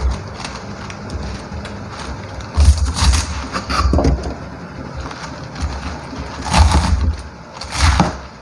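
Knife cutting through napa cabbage onto a cutting board: crisp crunching cuts, each with a dull knock of the blade on the board, in two short clusters with pauses between them.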